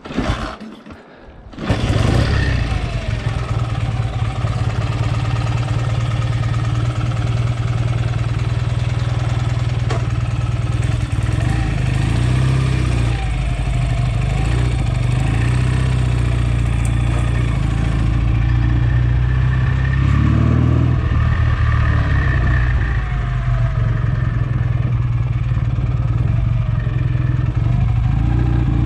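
BSA A65 Lightning's 650 cc parallel-twin engine being started: a brief burst, a second's lull, then it fires at about two seconds in and keeps running steadily.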